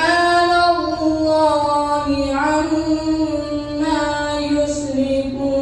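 A single voice singing or chanting long, held notes that glide slowly between pitches, with no clear instrument backing it.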